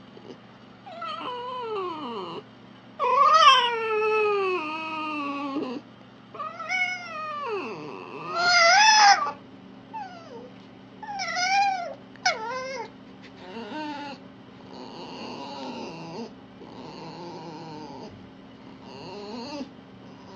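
A fox calling in a run of high, whining cries that slide and waver in pitch. Several long drawn-out cries come in the first half, shorter wavering ones follow, and rougher, noisier calls come near the end.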